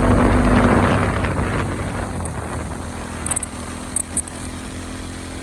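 Motorcycle engine running steadily while riding, with wind rushing over the microphone that eases off after the first couple of seconds. A few short clicks come through about three and four seconds in.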